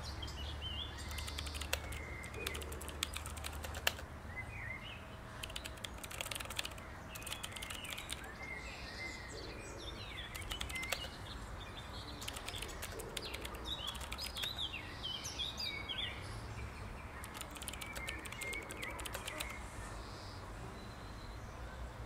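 Birds chirping over a steady low outdoor rumble, with four short runs of rapid tapping on a phone's keyboard.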